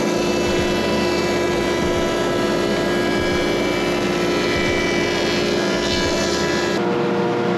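Planer-molder running steadily as its cutterhead mills a pine board. About a second before the end the sound changes abruptly.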